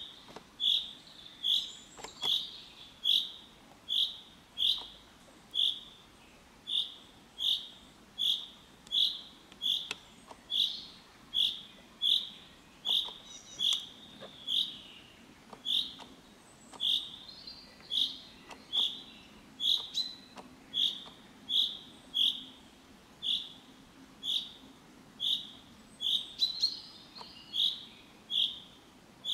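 Male common chaffinch calling: one short note repeated over and over at a steady, regular pace, about one every three-quarters of a second.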